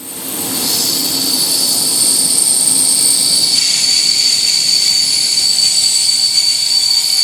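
Brakes of a diesel-hauled regional passenger train squealing during braking: several steady, high-pitched tones held together, fading in over the first second.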